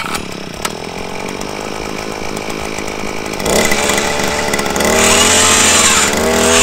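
Gas-powered earth auger's small engine catching on a pull of the recoil starter and running, then revved up in steps, louder about halfway in and higher still near the end, with the pitch rising.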